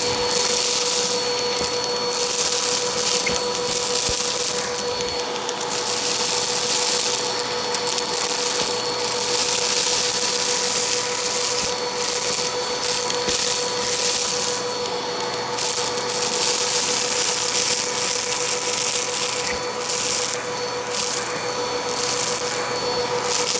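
Bissell vacuum cleaner running continuously: a steady motor whine over a loud rush of air, the hiss swelling and dipping every second or two.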